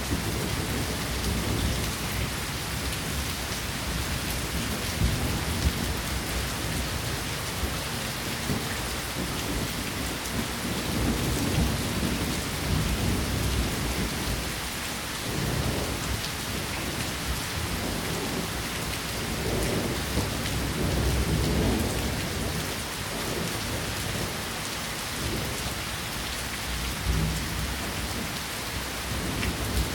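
Steady rain falling: a dense, even hiss with a few sharp, louder drop hits. Low rumbling swells rise and fade underneath a few times.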